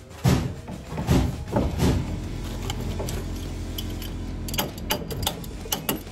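Knocks and clatter of PVC condensate drain pipe and fittings being handled and pushed together, several sharp knocks in the first two seconds and a run of clicks near the end, over faint background music.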